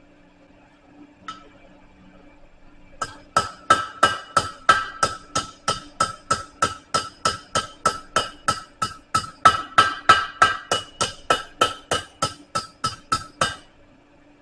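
Blacksmith's hammer striking hot steel on an anvil, bending the bar: one lone blow about a second in, then a steady run of about three ringing blows a second that stops shortly before the end.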